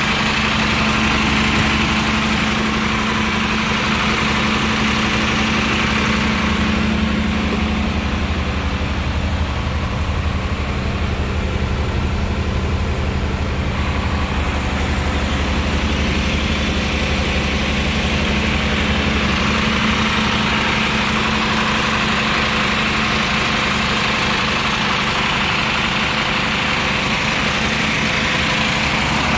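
Mercedes-Benz Atego 2628 concrete mixer truck's diesel engine idling steadily. For a stretch in the middle it is heard from inside the cab and sounds duller.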